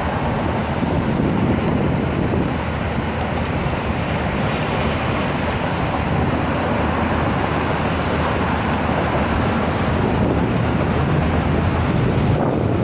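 Steady rumbling rush of vehicle and traffic noise mixed with wind noise, even and unbroken.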